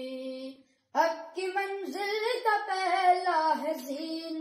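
A boy singing a manqabat. A held note breaks off just under a second in, and after a short silence he sings on with a wavering, ornamented melody.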